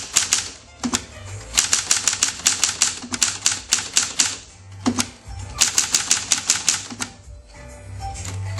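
Hermes Ambassador manual typewriter being typed on: fast runs of sharp keystrokes, several a second, as the typebars strike the platen, broken by pauses of about a second.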